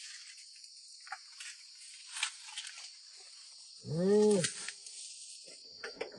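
Fresh leafy branches rustling as goats feed at a wooden pen, with one short bleat about four seconds in that rises and falls in pitch, over a steady high drone of insects.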